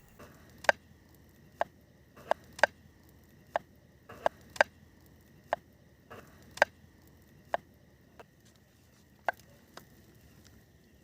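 A series of sharp, separate knocks, about one a second at uneven intervals, over a faint steady high-pitched tone.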